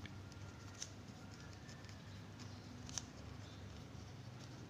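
Faint scratching of a pen writing on paper on a clipboard, with a couple of light ticks from the pen, the clearest about three seconds in.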